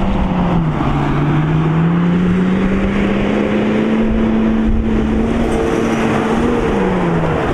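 Vehicle engine working hard as it drives up a sand dune, its revs dipping, then climbing slowly for several seconds before falling away near the end, over a rushing haze of tyre, sand and wind noise.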